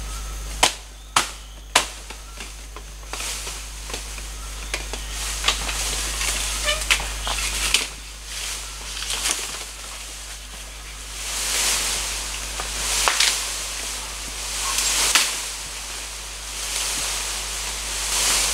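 Three sharp chops of a blade into bamboo, within the first two seconds, then repeated rustling and swishing of bamboo leaves and branches in swells as a cut bamboo pole is pulled out of the clump.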